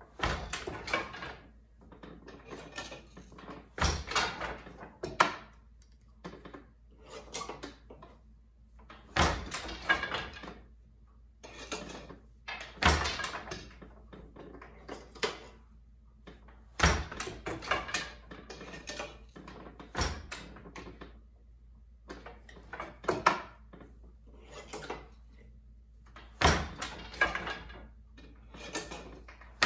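Wooden Glimåkra Standard floor loom being worked for overshot weaving: the beater knocks the weft into the cloth every few seconds, often two knocks close together, with lighter clicks and clatter from the boat shuttle, treadles and shafts in between.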